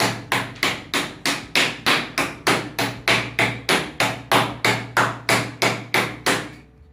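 A slab of raw beef being pounded to tenderize it: quick, even strikes at about three and a half a second, stopping shortly before the end.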